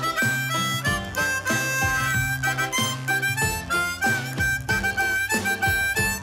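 Instrumental closing-theme music: a lively tune of short, quick notes over a steady bass line.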